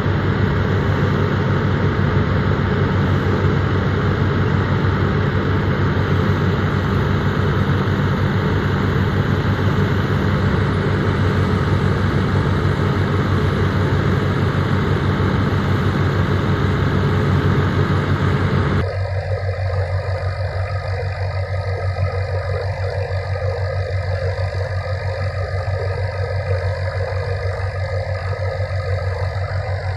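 Tractor engine running steadily under load while driving a wheat thresher through its belt pulley, with the thresher's drum whirring. About 19 s in the sound changes abruptly to a quieter, duller hum of the same machinery from farther off.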